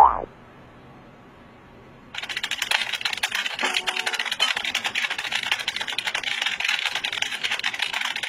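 Rapid, continuous typing on a computer keyboard, a dense clatter of keystrokes starting about two seconds in after a short lull.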